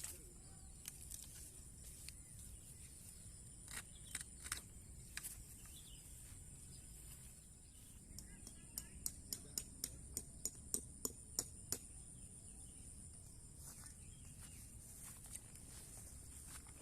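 Faint outdoor ambience with a steady high hiss, broken by scattered sharp clicks and, about halfway through, a run of light knocks at roughly three a second for a few seconds.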